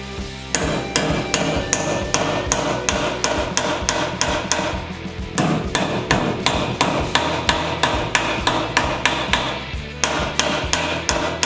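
Steel hammer striking a metal hinge clamped in a bench vise in quick repeated blows, about three a second. The run pauses briefly about halfway through and again near the end.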